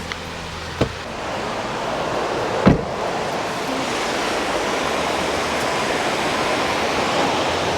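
Steady rushing of Meigs Falls, a roadside waterfall, swelling over the first couple of seconds and then holding. A sharp click comes about a second in, and a louder thump comes near three seconds.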